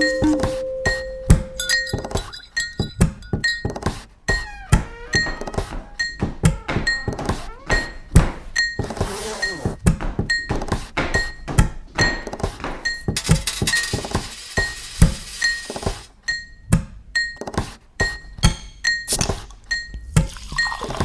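A rhythmic beat built from cafe sounds: thunks and clinks of cups and glassware repeat in a steady pulse of about two knocks a second, with short ringing tones between them. About two-thirds of the way through, a stretch of hiss runs under the beat for a few seconds.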